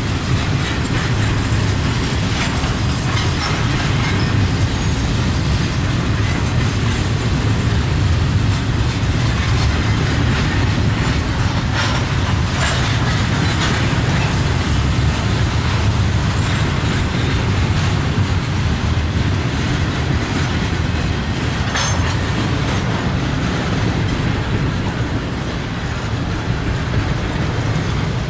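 Double-stack intermodal freight cars rolling past on the track: a steady, loud rumble of steel wheels on rail, with a few sharp clicks from the wheels about halfway through and again later.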